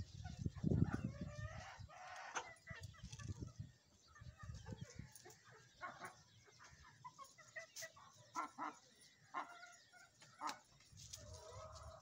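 Aseel chickens clucking: a run of short, repeated clucks and calls throughout, with a low rumble in the first two seconds.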